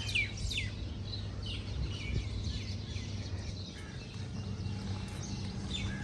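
Birds chirping: a few quick falling chirps in the first second, then fainter scattered chirps, over a low steady outdoor hum.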